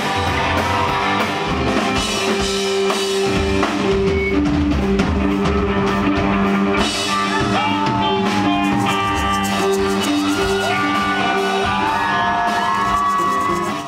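Rock band playing live: electric guitars and drum kit, with gliding lead notes in the second half. The music cuts off abruptly at the end.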